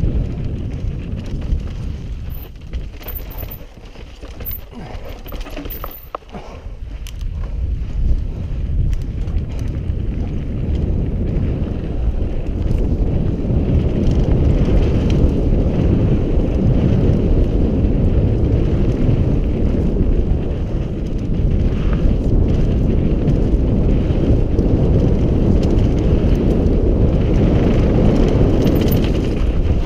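Wind rushing over a helmet-mounted camera's microphone, with mountain bike tyres rumbling over dry, rutted dirt on a fast descent and occasional clicks and rattles from the bike. The rush drops for a few seconds near the start, then rises and stays loud.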